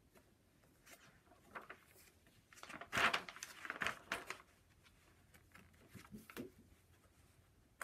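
Paper rustling as the large pages of a paper doll book are turned and slid over one another by hand. A few light handling sounds come first, then the loudest rustle, about three seconds in, and a few more soft ones after it.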